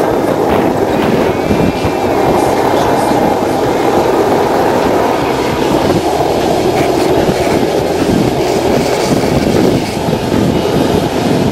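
Longboard wheels rolling fast over asphalt: a loud, steady rumble.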